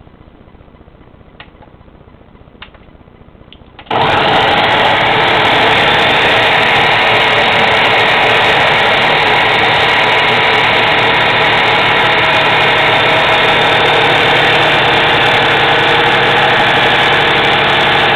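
Two light clicks, then about four seconds in a Ninja countertop blender's motor switches on abruptly and runs loud and steady. Its blade is churning partly frozen banana slices into banana ice cream.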